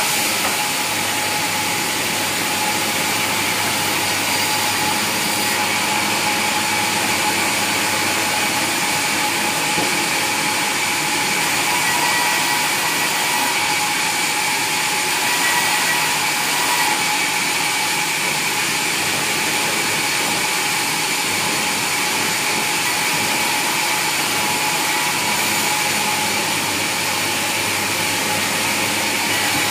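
Sawmill machinery running steadily: a constant whine over an even rushing noise, with no pauses or strikes.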